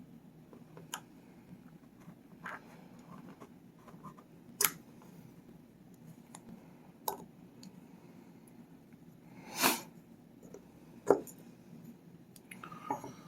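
Scattered sharp clicks and taps of a tool working a C-clip off the padlock's internal parts, about seven in all, with a longer scrape near ten seconds in.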